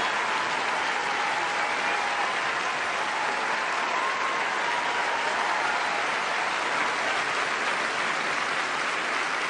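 Large crowd applauding steadily, a dense, even clapping with no music.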